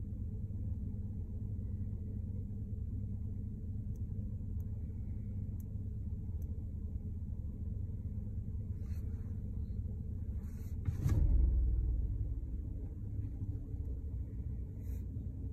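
Vehicle engine idling, a steady low rumble heard from inside the cab. A sharp knock comes about eleven seconds in, followed by a brief louder rumble.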